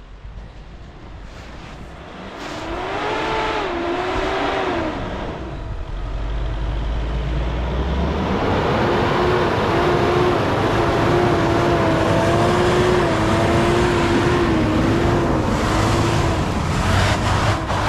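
Mitsubishi L200 pickup's engine revving under load as it ploughs through deep snow, its pitch rising and wavering, with the tyres spinning and churning in the snow. It pulls briefly a few seconds in, then revs harder and for longer from about the middle on.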